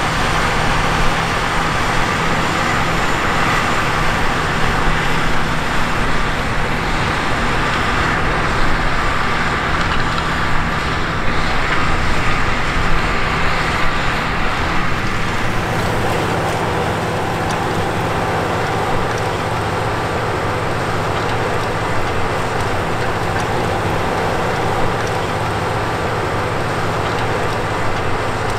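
Case IH Quadtrac 540's Cummins six-cylinder diesel engine running steadily under heavy load, pulling a subsoiler and disc harrow through the soil. The tone of the running shifts slightly about halfway through.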